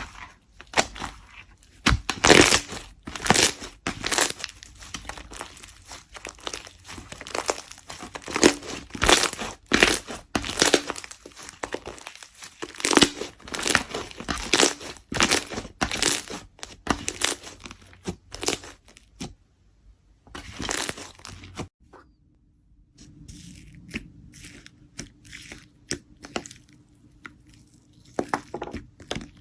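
Slime being worked by hand: a rapid run of sticky crackling and popping as it is pressed and stretched, easing into a quieter stretch of sparser crackles near the end.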